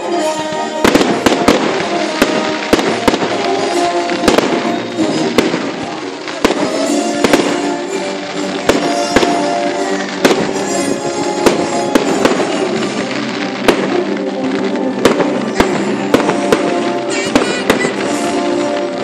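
Fireworks going off in a display, with many sharp bangs and crackling bursts starting about a second in. Loud music plays under them, with sustained held notes.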